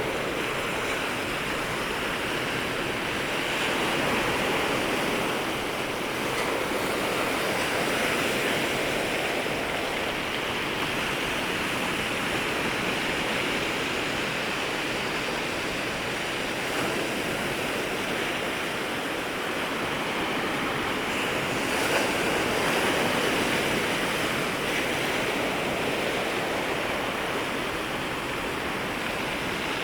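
Small waves breaking and washing at the shoreline, a continuous hiss of surf that swells and eases every few seconds.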